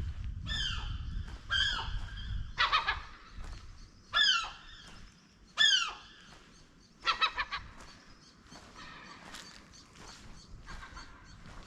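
Gulls calling repeatedly: a run of loud cries that each fall in pitch, with some harsher, raspier calls among them. A low rumble sits under the first few seconds.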